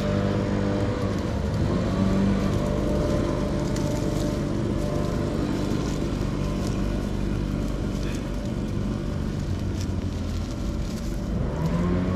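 Small two-stroke engine of a handheld gas trimmer running at a steady pitch, its speed rising shortly before the end.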